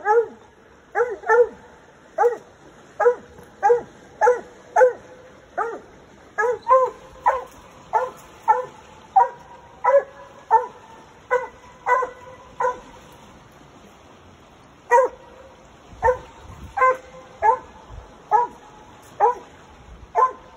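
Coon dog barking at a tree, a steady string of short barks, one to two a second, with a pause of about two seconds past the middle: tree barking, the sign that she has raccoons treed.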